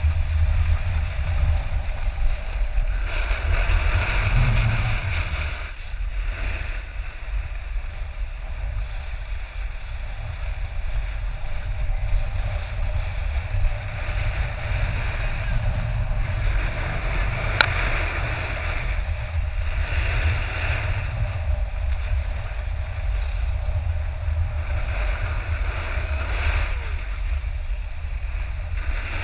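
Wind buffeting a pole-mounted GoPro during a snowboard run, over the hiss and scrape of the board sliding on groomed snow, which swells now and then. A single sharp click a little past the middle.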